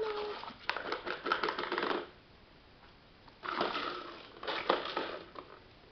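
A chihuahua attacking a round plastic ball-track cat toy, which rattles and clatters in rapid clicks in two bursts, the second starting about three and a half seconds in. A short high yip from the dog comes right at the start.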